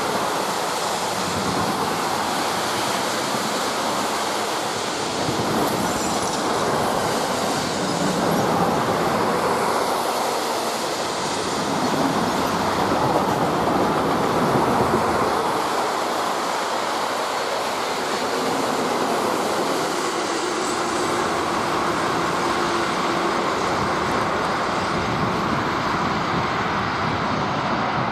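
Long freight train of covered, tank and car-transport wagons rolling past behind an electric locomotive: a steady, loud noise of wheels on rail that swells a little now and then.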